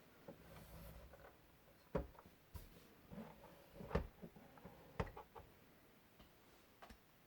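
Handling noise from a 1:18 diecast model car and its packaging: a few sharp clicks and knocks, the loudest about two, four and five seconds in, among softer ticks and rustling.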